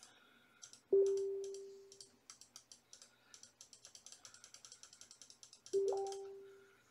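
Rapid, even clicking of a computer mouse button, several clicks a second, as the letter-spacing arrow is clicked over and over. Twice, about a second in and again near the end, a short low chime rings out and fades over about a second: a Facebook Messenger notification sound.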